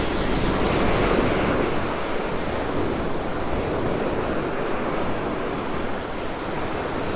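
Ocean surf washing onto a sandy beach: a steady rushing wash that swells about a second in, with wind on the microphone.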